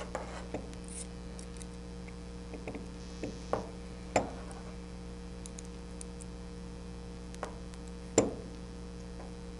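Allen key clicking and scraping against the small steel screws of a stepper motor as its 8-32 mounting screws are turned out. There are a handful of separate sharp clicks over a steady electrical hum, and the loudest click comes near the end.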